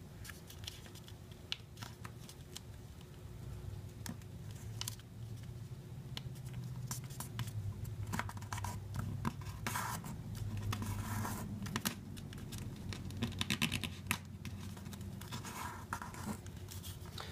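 A sheet of printer paper being folded and creased by hand, with scattered light scrapes and clicks. Denser bursts of rustling come about ten seconds in and again near the end, as fingers and fingernails run along the fold.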